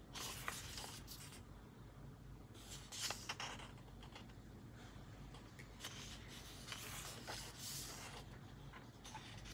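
Pages of a small colouring book with thin, flimsy paper being turned one after another: several faint paper rustles and swishes, each lasting under a second.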